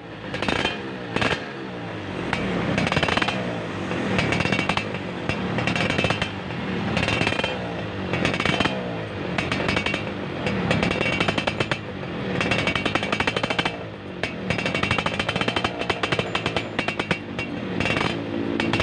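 Yamaha F1ZR's two-stroke single-cylinder engine revving through a stock-looking muffler that has been hollowed out (bobok) for a racing sound. The throttle is blipped up and down about every one to two seconds, giving a crisp, raspy two-stroke exhaust note with crackle.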